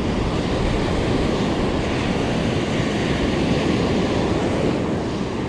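Surf breaking and washing up a sandy beach, a steady rush of waves.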